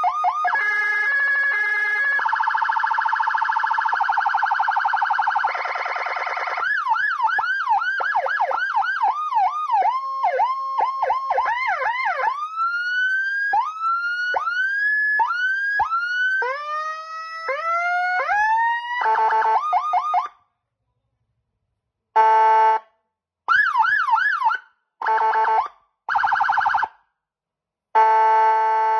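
Electronic siren from a 200-watt waterproof motorcycle siren with a Whelen WS200-style IC tone module, stepping through its tones. It opens with two alternating tones and a steady tone, switches about six seconds in to a fast yelp, and then to slower rising sweeps. After about two seconds of silence come a few short separate bursts, and near the end a new tone pattern starts.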